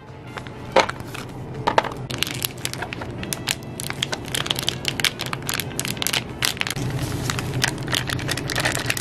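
Plastic and foil food pouches crinkling and rustling as rice cakes, fish cakes and seasoning powder are shaken out of them into a paper cup: a run of short crackles, thicker from about two seconds in, over a faint low hum.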